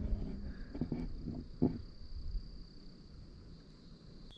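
A steady, high-pitched insect trill, crickets or similar, with a few faint knocks in the first couple of seconds. The trill breaks off near the end.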